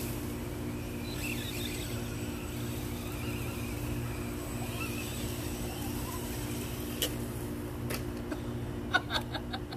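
Electric RC car driving over grass, its motor a faint wavering whine over a steady low hum, with a few sharp clicks and taps in the last three seconds.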